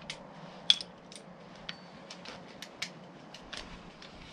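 A metal wrench clicking and clinking as it is handled and fitted: a dozen or so sharp, irregular metallic ticks, the loudest a little under a second in.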